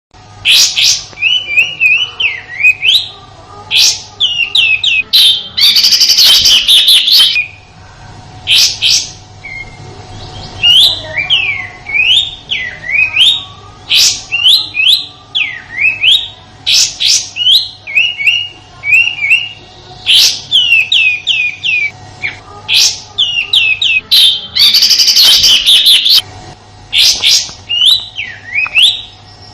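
Kapas tembak bulbul calling: a run of short whistled chirps and quick down-slurred notes, with two longer harsh, rattling "tembakan" (shot) bursts, about six seconds in and again near 25 seconds. This is the rough shooting call used as a tutor recording for songbirds.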